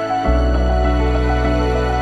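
Calm background music of held notes, with a deep bass note coming in about a quarter of a second in.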